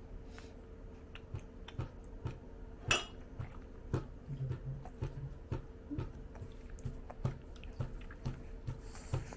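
Toddler chewing food at close range, about two soft chews a second, with small clicks of dishes or cutlery and one sharp clink about three seconds in.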